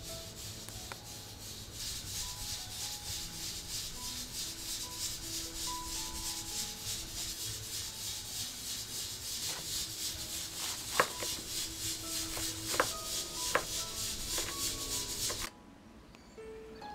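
A steady high hiss pulsing in a fast, even rhythm, with faint short tones under it; in the second half a few sharp knocks of hands and a knife on a wooden cutting board as chopped greens are handled. The hiss cuts off suddenly near the end.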